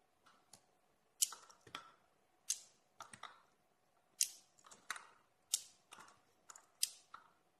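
Magnetic rings and 17 mm steel balls snapping together with sharp metallic clicks, about a dozen at an uneven pace, some in quick pairs and triples.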